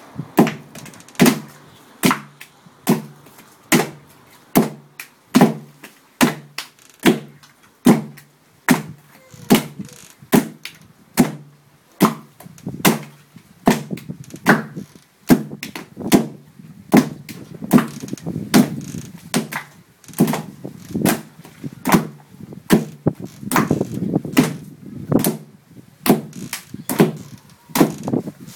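Stone poi pounders striking cooked taro (kalo) on a wooden poi board, a steady run of heavy thuds about one to two a second as two people pound in turn, working it into pa'i'ai.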